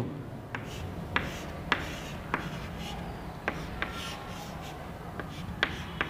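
Chalk drawing on a chalkboard: a run of sharp, irregular taps and short strokes as the chalk strikes and drags across the board.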